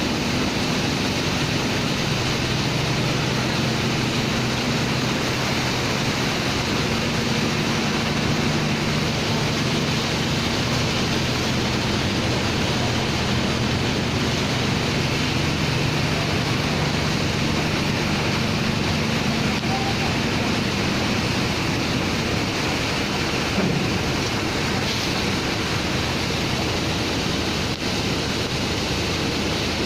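Construction machinery engine running steadily under a loud, even rushing noise. The engine hum fades out about two-thirds of the way through while the rushing continues.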